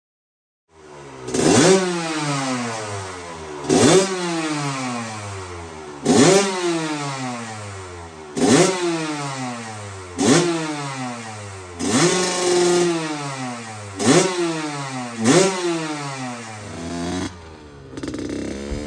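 Restored 1982 Suzuki RM125's single-cylinder two-stroke engine being blipped: about seven sharp revs, each falling back toward idle, every two seconds or so. Near the end it settles into a steadier engine note as the bike is ridden.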